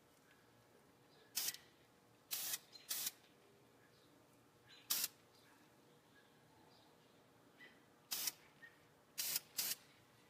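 Aerosol spray paint can giving about seven short blasts of black paint, each a hiss of a fraction of a second, two close together near the end.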